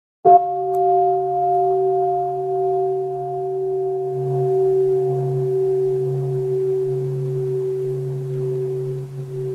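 Buddhist bowl bell struck once, then ringing on in a long, slowly fading tone of several pitches whose low hum pulses gently. In Plum Village practice this is the bell of mindfulness, the signal for everyone to stop and breathe.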